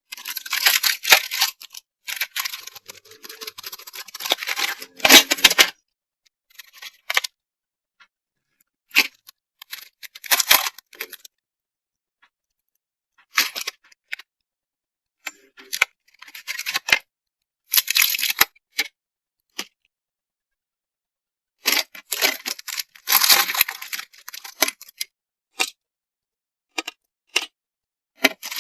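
Packaging of a stationery kit being handled and opened: rustling, crinkling and tearing in bursts, with small clicks and taps, broken by dead silent gaps. The longest bursts come at the start and again past the two-thirds mark.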